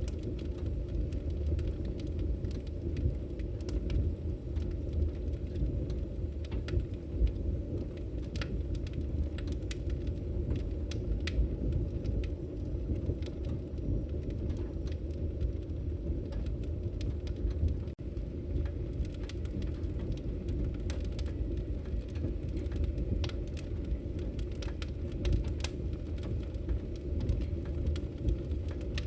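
Wood fire crackling in a fireplace: frequent irregular sharp pops and snaps over a steady low rush of burning.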